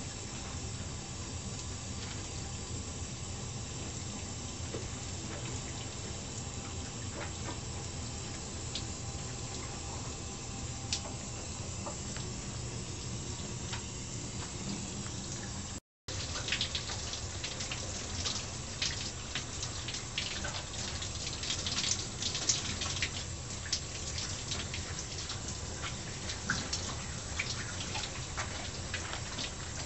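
Shower spray running steadily, water splashing off a person's back and the stall walls. It cuts out for a split second about halfway, and after that sharper splashes stand out over the hiss.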